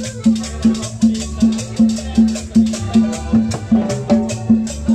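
Live Latin dance music from a street band: an upright bass plays a steady pulsing note about two and a half times a second, under hand percussion.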